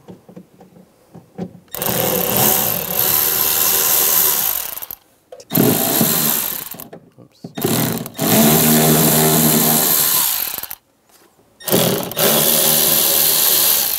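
A cordless power driver with a T20 Torx socket, run in four spurts of one to three seconds each, backing out the door panel screws.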